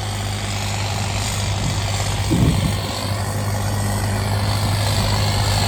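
John Deere 5210 tractor's diesel engine running steadily under heavy load, pulling hard enough that the rear tyres are slipping. There is a short rise in pitch and level about two and a half seconds in.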